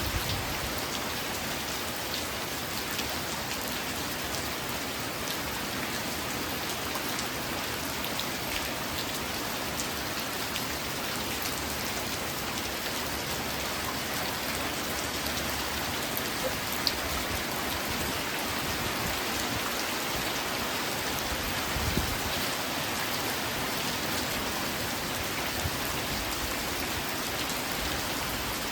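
Steady rain falling, an even hiss with scattered drop ticks and a couple of slightly louder drops.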